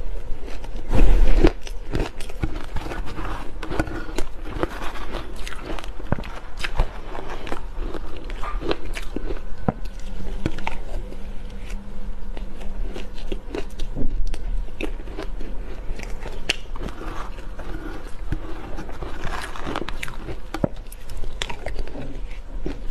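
Close-miked crunching and chewing of shaved ice coated in matcha powder: a dense, continuous run of crisp crackles and crunches, with the loudest bite about a second in.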